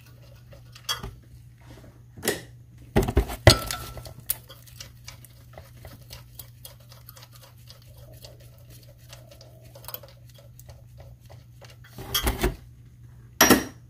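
Wrench clinking and knocking on metal while the EGR pipe's fitting is loosened in an engine bay: scattered clanks, a loud cluster about three seconds in, a run of light ticks in the middle and two more clanks near the end.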